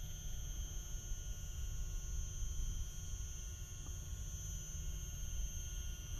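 Low, gusting wind rumble on the microphone, with a steady high-pitched whine.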